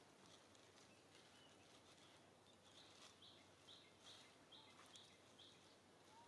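Near silence with faint outdoor background hiss. Through the middle, a bird gives a run of short high chirps, about two a second, with a few faint clicks.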